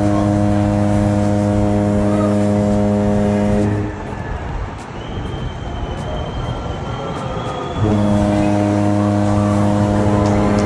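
Ship's horn sounding long, steady low blasts: one ends about four seconds in, and another begins about eight seconds in and carries on.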